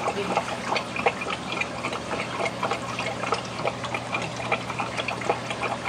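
Aquarium water trickling and splashing steadily, with a continuous patter of small splashes over a steady low hum from the filter.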